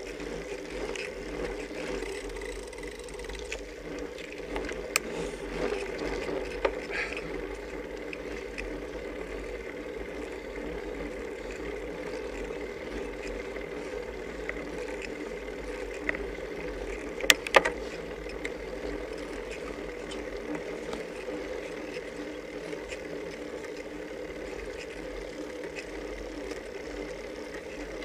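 Steady road and wind noise from a road bicycle climbing slowly, picked up by a camera mounted on the bike, with a sharp click about five seconds in and a quick pair of clicks a little past halfway.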